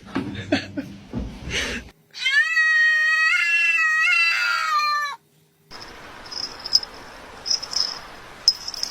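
A cat meowing in one long, wavering, drawn-out call of about three seconds, two seconds in. It is followed by a fainter hiss with short high chirps.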